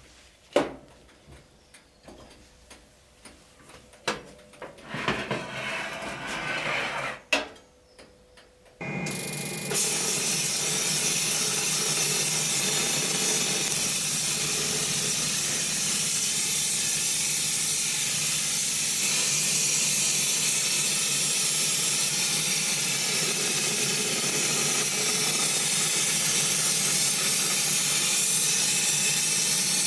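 A few clicks and light knocks, then about nine seconds in a powder coating gun starts spraying: a steady hiss of compressed air carrying the powder.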